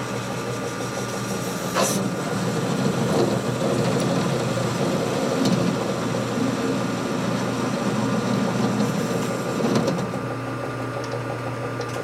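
Metal lathe running with a steady hum while its cutting tool shortens the end of a heat-treated steel part. The cut grows louder and rougher from about two seconds in until near the end, with a sharp tick as it begins.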